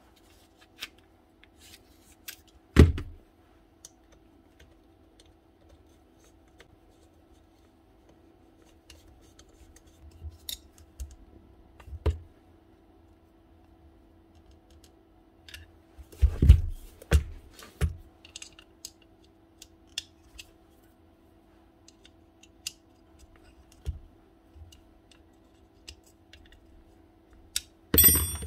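Clicks, taps and knocks of an old Makita nut gun's housing, gears and screws being handled and fitted back together on a workbench. A few heavier knocks come a few seconds in, about midway, and near the end, over a faint steady hum.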